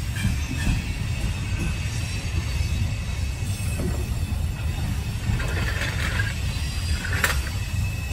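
Car being lowered off a jack: a few light metallic clinks and one sharp click about seven seconds in, over a steady low rumble.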